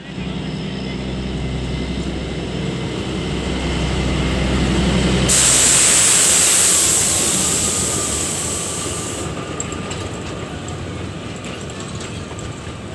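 Narrow-gauge diesel locomotive NDM5 810 passing close by, its engine running and loudest about halfway through. A loud hiss starts suddenly about five seconds in and cuts off about four seconds later. The coaches then roll past with their wheels clicking.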